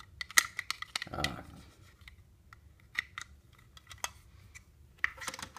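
A small vinyl bobblehead figure being handled and set down on a box: scattered light clicks and taps, the sharpest about half a second in, then thinning out to a few faint ticks.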